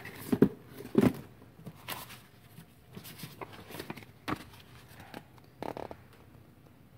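Cardboard box being handled and shifted on a workbench, with paper rustling from an instruction sheet: scattered knocks and rustles, the loudest in the first second.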